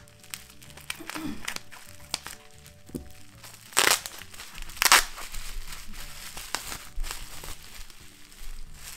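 Plastic bubble wrap crinkling and rustling as it is handled and pulled open from around a wrapped ceramic jar, with two louder crackles about four and five seconds in. Soft background music plays underneath.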